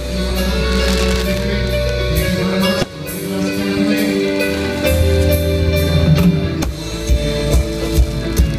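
Music with long held notes over a bass line, turning to a sharper, beat-driven rhythm in the last second or two.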